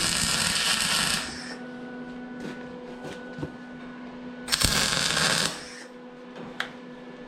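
Electric arc welding a steel bar frame: two crackling bursts of the arc, the first about a second and a half long and the second, about five seconds in, just under a second, with a steady hum from the welder between them.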